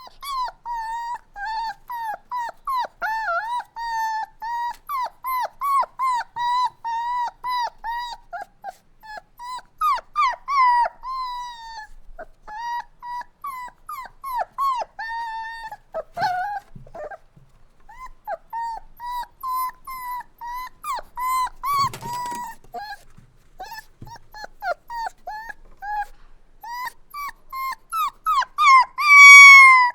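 Puppy crying and whining: a rapid string of short, high-pitched whimpers, several a second, with a brief lull past the middle and a louder, longer cry near the end.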